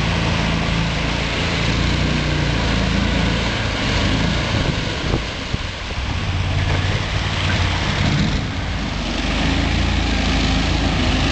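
Amphibious 6x6 ATV's small engine running hard under a steady hiss. It eases off about halfway through and picks up again.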